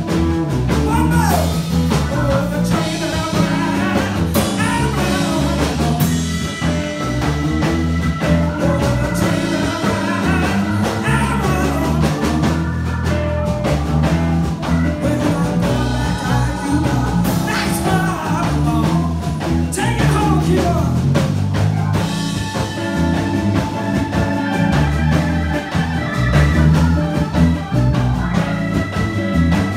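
A live band playing, with a woman singing into a microphone over a steady bass and drums.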